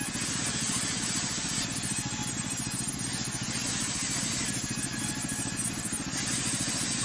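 Engine-driven band-saw sawmill running with a rapid, even low beat from its engine. Over it a hiss, likely the blade cutting timber, rises and drops back twice.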